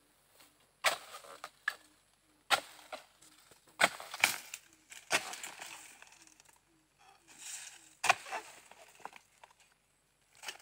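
Sharp chopping strikes of a dodos, a long-handled palm chisel, cutting into an oil palm's frond and fruit-bunch stalks. There are about six blows at uneven intervals, each followed by a rustle of the fronds.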